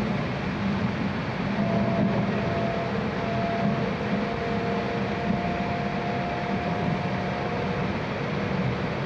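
Steady running noise of an E6 series Shinkansen car heard from inside the cabin as the train approaches its terminal stop, with a faint steady whine from about a second and a half in until near the end.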